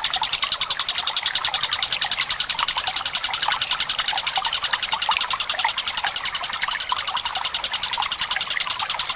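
Tengkek buto bird giving a long, fast, even rattling trill without a break, over trickling water.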